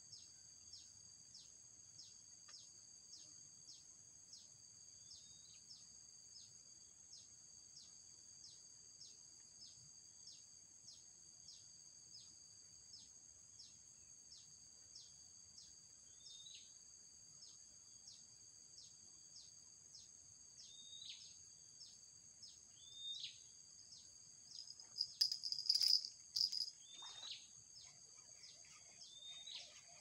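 Steady high-pitched insect drone with a regular ticking pulse about twice a second, overlaid by short falling bird chirps that come more often in the second half. There is a louder burst of calling about 25 seconds in.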